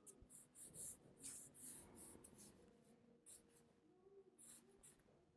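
Faint, short strokes of a black marker pen on paper, one after another in an irregular run with brief pauses, as lines are drawn in.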